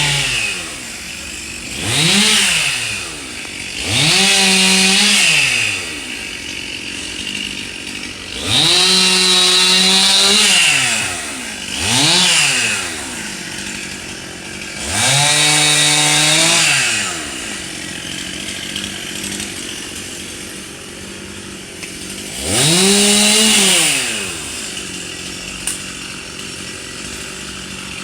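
Chainsaw engine revving up and dropping back to idle six times. Some revs are brief and others are held at full speed for one to two seconds, with a longer stretch at idle in the last third.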